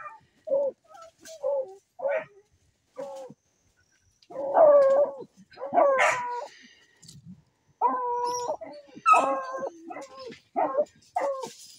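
Hunting dog baying at the mouth of a burrow where a paca has gone to ground: a run of short high barks, with a few longer drawn-out howling calls in the middle.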